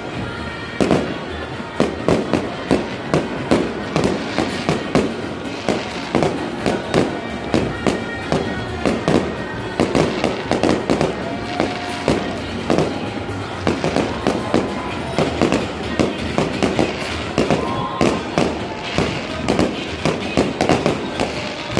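Fireworks display: aerial shells bursting in a rapid barrage, a steady string of sharp bangs, about two or three a second.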